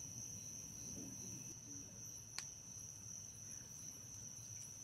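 Crickets calling with a steady, unbroken high-pitched trill. A single sharp click comes about two and a half seconds in.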